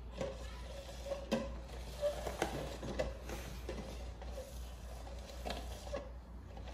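Red plastic cups being slid and shuffled around on a glass tabletop, with irregular light knocks and scrapes as they bump the glass and each other.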